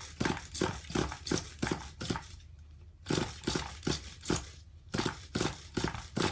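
Repeated short, quick pulls on the recoil pull-starter of a DTX .18 nitro RC engine, about three a second in three bursts with brief pauses; the engine turns over but does not fire. The recoil is not happy.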